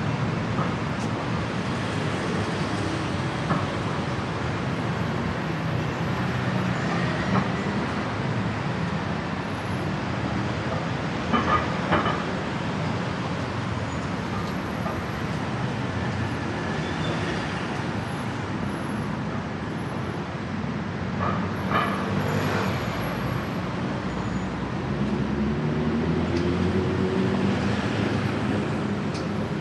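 Steady traffic on a busy city road: cars, vans and motorbikes running past, with a vehicle's engine revving up near the end.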